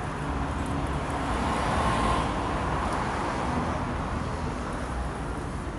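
Street traffic noise: a steady rumble of cars, with one vehicle passing and swelling louder about two seconds in.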